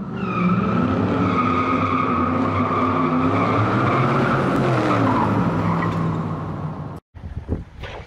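Car burnout sound effect: tyres squealing over an engine whose pitch rises and falls, cutting off abruptly about seven seconds in.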